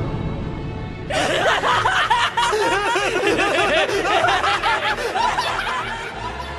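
Soundtrack audio: music, and from about a second in, rapid overlapping laughter layered over it, like cackling.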